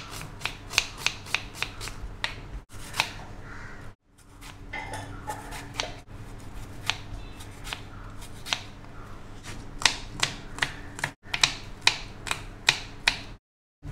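Kitchen knife chopping onion, tomato and green chillies on a wooden cutting board: a run of sharp taps of the blade on the board, a few a second, breaking off briefly a few times.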